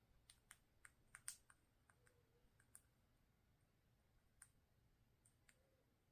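Near silence with a dozen faint, irregular light clicks and taps, most of them in the first three seconds.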